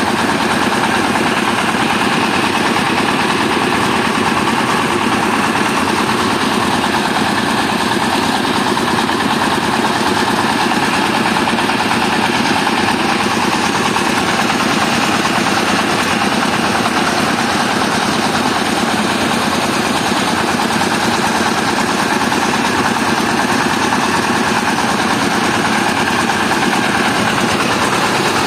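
Mobile rice mill running: its diesel engine runs steadily, driving the huller and blower, in a loud, even mechanical din that does not change.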